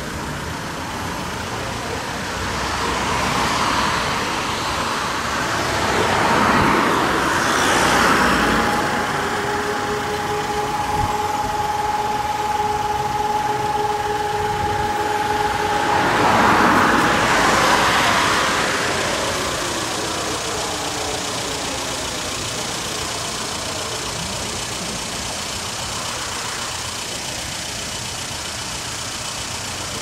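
Public warning siren going off in a false alarm set off by a technical fault. Its howl winds down, holds a steady tone for several seconds in the middle, then starts rising again near the end. Two vehicles pass along the street, about six and seventeen seconds in.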